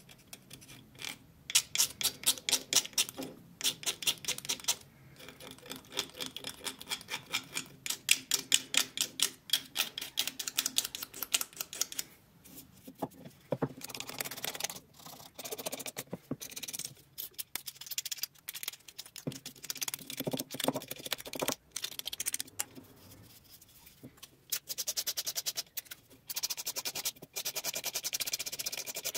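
A thin metal blade scraping the wooden body of a century-old wooden hand plane in fast runs of short strokes, with brief pauses between runs.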